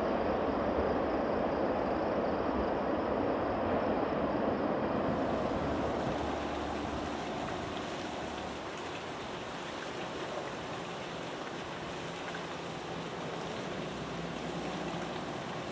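A freight train rolling away, its steady rumble slowly fading. About five seconds in it gives way to the steady splash and hiss of a thin waterfall running down a rock face.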